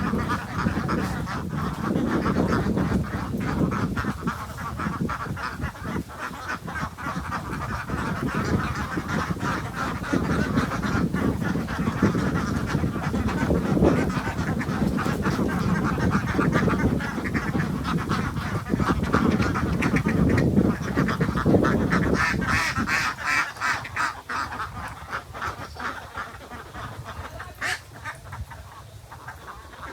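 Domestic waterfowl, many birds quacking and honking at once, dying down over the last few seconds.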